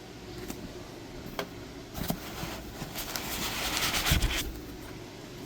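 Packaging being handled while parts are taken out of the box: a couple of light clicks, then about two seconds of crinkly rustling that builds to a low thump near the end.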